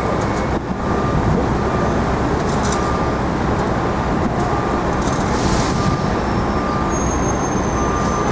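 Steady city street traffic noise, with a faint beep repeating about once a second.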